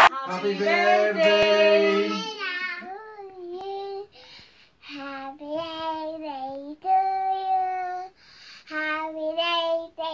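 A little girl singing, holding long notes in short phrases separated by brief pauses.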